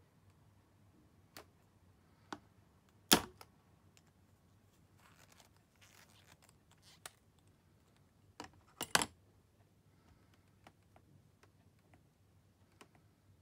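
Sharp clicks and taps of a lipstick and its case being handled by hand over a plastic tray: a few isolated clicks, the loudest about three seconds in, a soft rustle, then a quick cluster of clicks near nine seconds as the lipstick is uncapped.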